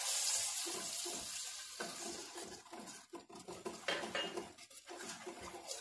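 Steel spoon stirring and scraping in a stainless steel kadai, with short clinks of metal on metal. A light frying hiss from the sauce in the hot pan fades over the first couple of seconds.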